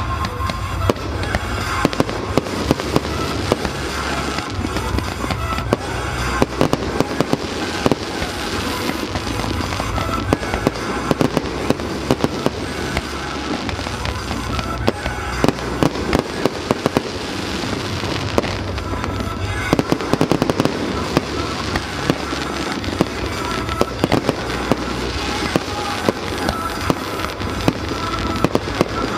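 Fireworks display: many sharp bangs and crackles in quick succession throughout, over music playing underneath.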